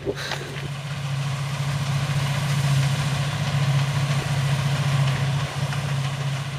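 Combine harvester running in a wheat field: a steady, loud engine drone with the mechanical rattle and whirr of the machine working, a little louder in the middle.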